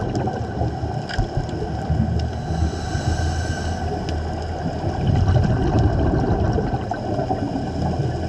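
Underwater sound of a scuba diver's exhaled regulator bubbles: a low rumbling gurgle that swells and eases, loudest about five seconds in, over a faint steady high whine.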